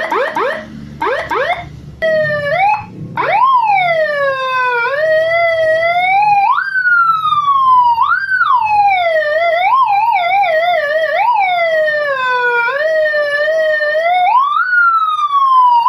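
Electronic siren module sounding: about two seconds of quick rising chirps, then a tone that leaps up and glides slowly down in pitch, over and over, with a short warbling stretch near the middle.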